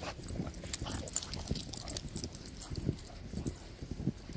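Boots crunching through deep fresh snow at a steady walking pace, each step a soft thud with a crisp crunch.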